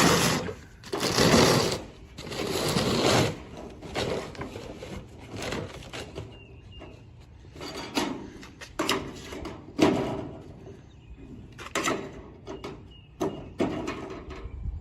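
Seamless gutter machine running out a length of sheet-metal gutter, the metal scraping and clattering in uneven bursts as it feeds out over a cardboard box.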